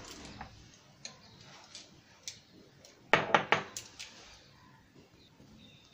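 Kitchen utensils and containers clinking and knocking: a few light clicks, then a quick cluster of sharper clatters about three seconds in.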